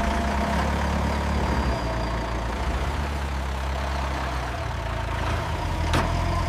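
A heavy engine running steadily with a low rumble.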